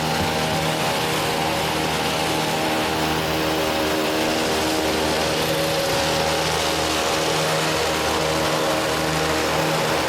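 Gas-powered hedge trimmer's small two-stroke engine running steadily at high speed while cutting a cedar hedge, an even engine tone over the clatter of the blades.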